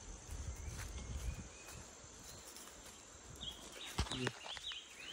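Walking footsteps and rustling through grass over a steady high insect drone. From about three and a half seconds in, a bird gives a quick series of short chirps, and a sharp knock comes about four seconds in.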